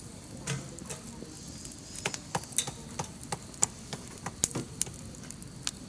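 Wood fire crackling: irregular sharp pops and snaps over a low hiss.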